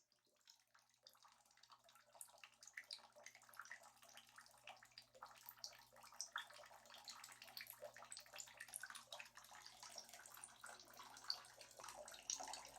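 Faint bath water moving in a bathtub: small irregular splashes and drips, growing slowly louder over the first few seconds.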